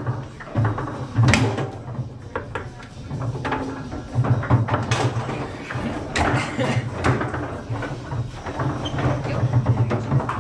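Table football in play: irregular sharp clacks and knocks as the ball is struck by the rod-mounted figures and the rods bang against the table, several loud hits clustered about a second and a half in, around five seconds and between six and seven seconds.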